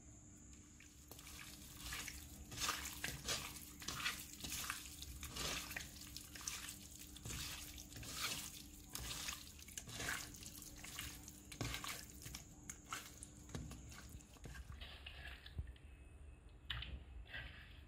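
A hand squeezing and turning raw chicken pieces in a wet chilli-and-spice marinade in a clay bowl: irregular wet squelches and smacks, starting about a second in.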